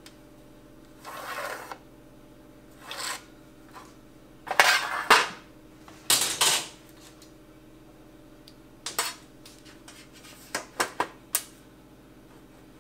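Metal tools and an aluminium sheet being handled on a metal workbench: a scrape, then short clattering knocks, loudest about five and six seconds in, and a few lighter clicks near the end as a plastic electric radiator fan is set down on the sheet.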